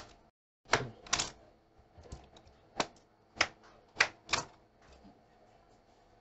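Kitchen knife slicing through raw potato and hitting a wooden cutting board: about eight sharp chops at uneven intervals, the last about four and a half seconds in.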